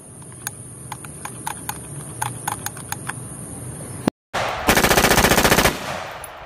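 A SIG MPX carbine firing a rapid burst lasting about a second, with an echo trailing off after it. Before it come a few seconds of faint clicks.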